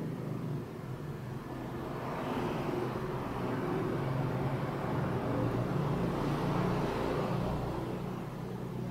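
A passing motor vehicle: a low engine rumble that swells over several seconds and fades near the end.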